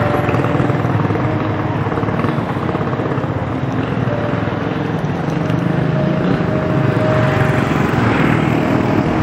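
Road traffic: motor vehicle engines running steadily, with a thin hum that comes and goes.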